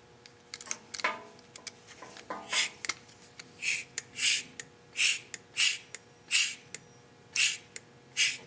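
Mityvac hand vacuum pump being squeezed stroke after stroke, each stroke a short puff of air. After a few faint clicks, the puffs start a couple of seconds in and come about every two-thirds of a second, pulling a vacuum of about 10 Hg on the brake bleeder line.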